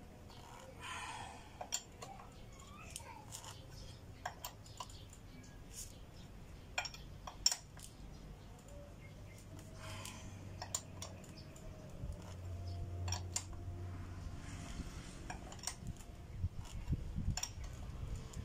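Scattered metallic clicks and clinks of a Y-shaped socket wrench working the bolts that clamp a new motorcycle front fork, with a couple of brief scraping sounds.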